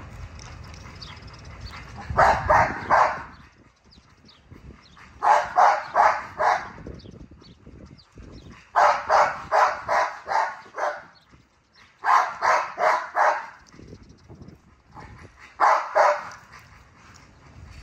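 American bully dog barking in five quick runs of three to seven barks each, the runs a few seconds apart.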